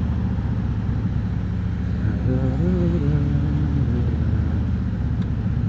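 Harley-Davidson Road King Special's V-twin engine running steadily under way. A short tone that rises and falls in pitch sits over it in the middle.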